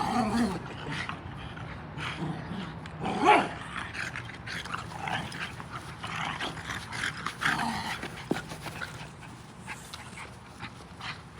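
Dogs playing tug-of-war, giving small whines and whimpers among scuffling sounds, with one louder cry about three seconds in.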